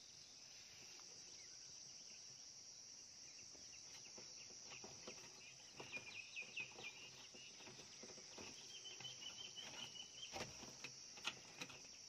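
Near silence: faint steady insect noise with short, rapidly repeated chirping trills about halfway through and again later, and scattered faint ticks.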